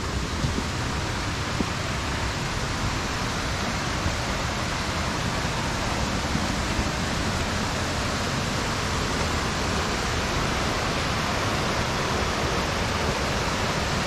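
Steady rush of a river pouring over small rocky cascades into pools, an even hiss that holds without change.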